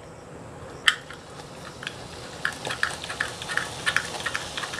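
Gram-flour sev dough pressed into hot oil in an iron kadhai, starting to sizzle and crackle from about halfway through and building. A single click about a second in.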